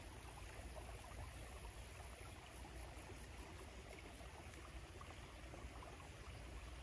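Shallow stream running: a faint, steady babble of water.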